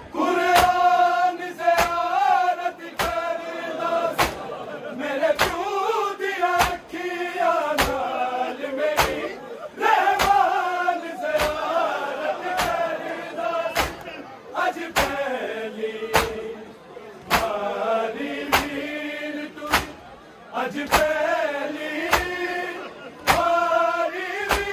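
Male voices chanting a noha, a Shia mourning lament, over steady chest-beating (matam) hand strikes, about three strikes every two seconds.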